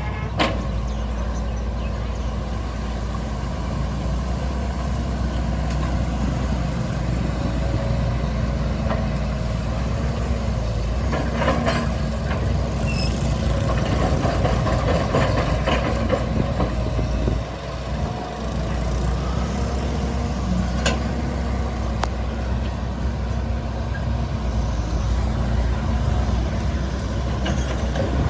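Excavator's diesel engine running steadily, with scattered knocks and clatter from the machine working, busiest around the middle.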